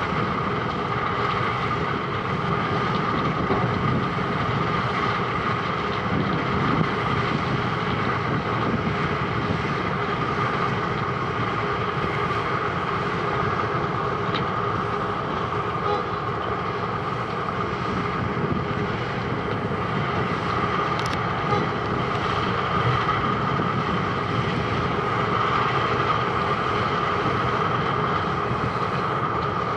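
Wirtgen W210i cold milling machine at work: a steady, unbroken heavy machine noise with a constant mid-pitched whine running through it.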